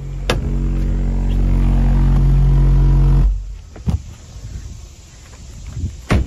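Jensen 12-inch subwoofer with a burnt voice coil, still playing a 45 Hz test tone at full volume as a harsh, buzzy low drone. The drone cuts off suddenly about three seconds in as the amp is switched off, followed by a couple of faint knocks.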